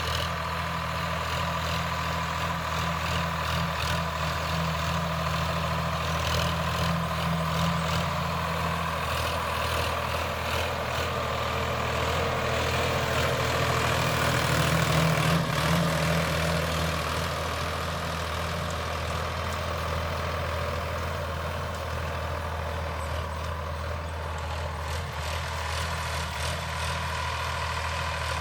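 Sonalika DI 745 III tractor's diesel engine running steadily under load while pulling a plough through dry ground. It swells louder for a few seconds near the middle.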